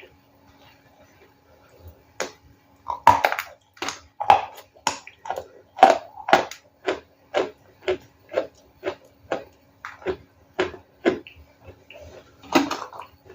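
Ice being chewed close to the microphone: after a quiet start, crisp crunching bites come about two to three times a second, with a few louder crunches among them.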